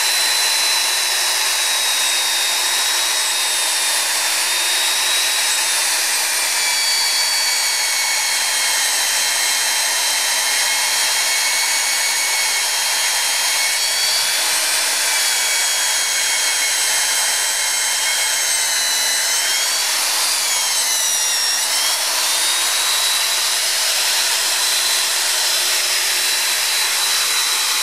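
Magnetic drill press boring through a steel angle with an annular cutter: a steady, loud motor whine over the hiss of cutting steel. The whine dips in pitch and recovers once about twenty seconds in.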